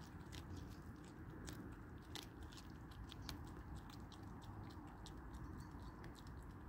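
Red fox chewing a chicken leg: quick, irregular crunches and clicks of its teeth on meat and bone, thickest in the first half.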